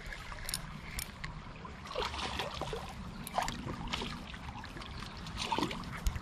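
Shallow creek water trickling, with irregular drips and small splashes at the surface, the strongest about two, three and a half and five and a half seconds in.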